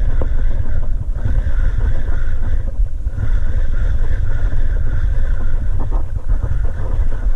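Wind buffeting the chest-mounted camera's microphone: a loud, continuous low rumble.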